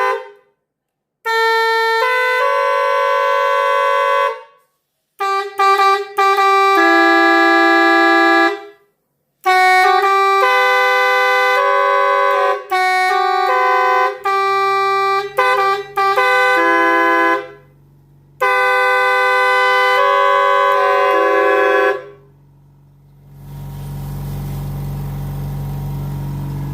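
Multi-tone air pressure horn from a 12-sound module sounding a series of different horn patterns: long blasts of several pitches at once that step between notes, and quick runs of short toots. About two thirds of the way through a low steady hum joins in, and once the horn falls silent a steady low hum with a hiss carries on.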